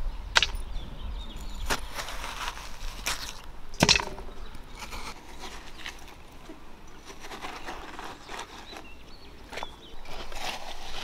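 A series of irregular sharp knocks and cracks, about eight to ten of them, the loudest about four seconds in.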